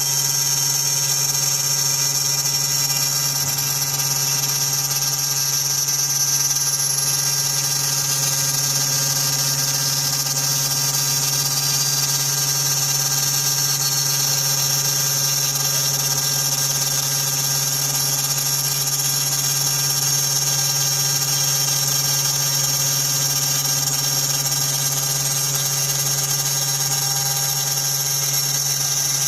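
CNC router's high-speed spindle running steadily while milling aluminum: a constant low hum with a high whine over it.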